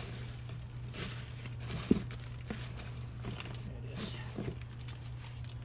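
Light rustling and scattered soft clicks of small parts being handled and searched through, with one sharper tap about two seconds in, over a steady low hum.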